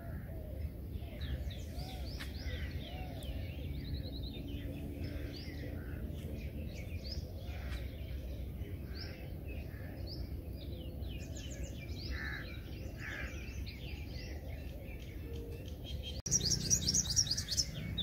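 A busy chorus of many small birds chirping and trilling, over a low steady rumble. About 16 seconds in the sound cuts abruptly to a louder, denser stretch of rapid high-pitched chirps.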